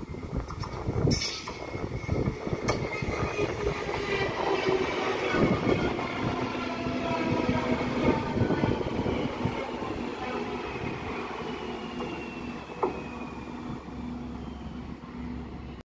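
A train running on the rails: wheel and running noise with a steady hum and a slowly falling whine. The sound cuts off abruptly just before the end.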